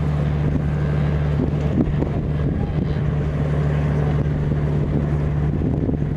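A boat's engine running steadily, a constant low drone with wind on the microphone.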